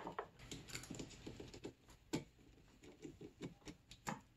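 Faint, scattered small clicks and light rubbing as rubber hose is worked off its fittings at the fuel pump. The cracked pulse line is being removed.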